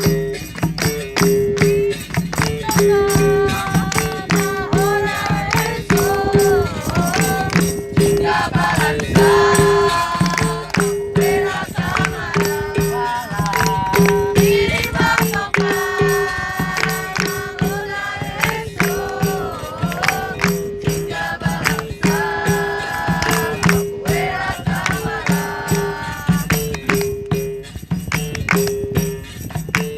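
Capoeira music: a steady repeating two-note instrumental pattern with tambourine jingles and a rattle, and sung phrases over most of it.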